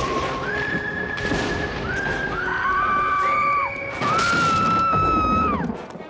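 Spooky cartoon soundtrack: a rumbling, noisy wash that starts suddenly, under several overlapping long, high wailing tones that each slide down as they end.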